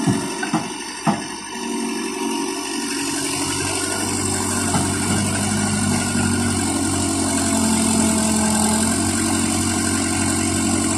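Caterpillar 307C hydraulic excavator's diesel engine running steadily under working load as the machine swings and digs, with a few sharp knocks in the first second or so as the bucket empties over the truck.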